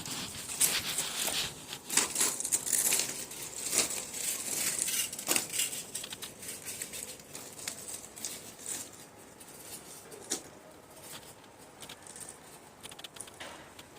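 Handling noise from CPVC pipe and fittings being worked by hand: irregular rustling and scraping with sharp plastic clicks, busiest in the first six seconds and then quieter.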